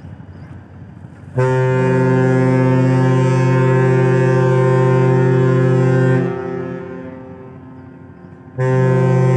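The passenger ship KM Kelud's horn sounding two long, low blasts: the first starts suddenly about a second in and holds for about five seconds before fading, and the second starts near the end and runs on. They are one of the horn signals given ahead of departure.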